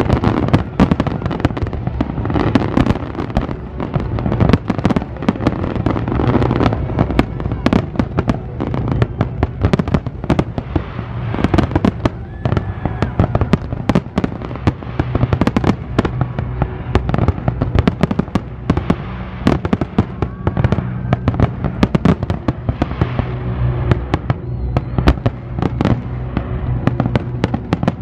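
Large aerial fireworks display: a rapid, unbroken barrage of bangs, many a second.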